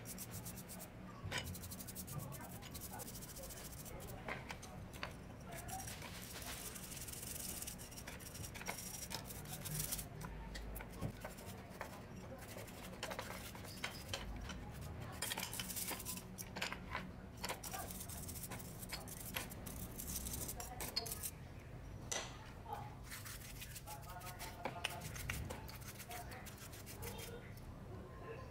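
Stiff brushes scrubbing an old electric drill's greasy metal housing and parts in a basin of liquid: a wet, scratchy bristle scrubbing with frequent small clicks and clinks of metal parts knocking together.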